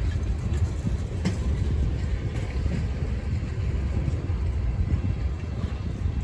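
CSX freight train of tank cars rolling past: a steady low rumble of steel wheels on the rails, with a few brief sharp clicks from the trucks and track.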